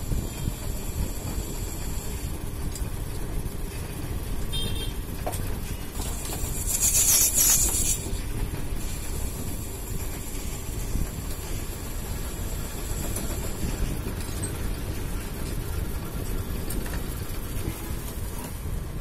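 Metal lathe running, its chuck spinning as a cutting tool turns a hardened steel manual-gearbox part, giving a steady mechanical rumble. A loud high hiss rises over it about seven seconds in and lasts about two seconds.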